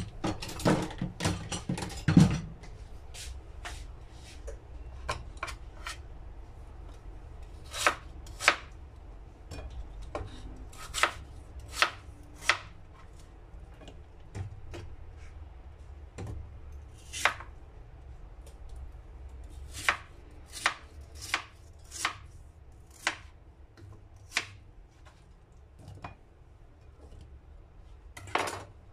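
Kitchen knife slicing peeled lotus root on a plastic cutting board. Each cut ends in a sharp tap of the blade on the board: a quick run of cuts at the start, then single cuts about once a second.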